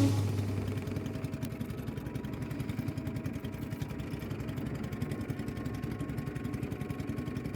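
A small engine running steadily with a fast, even pulse. Music fades out in the first second.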